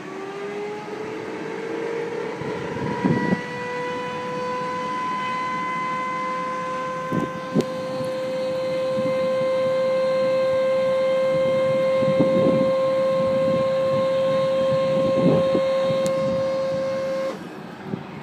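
Boeing 747-400's Pratt & Whitney PW901A APU gas turbine spooling up during its start. It gives a whine that rises in pitch over the first several seconds, then holds steady at running speed, with a few short thuds along the way. The whine cuts off suddenly near the end.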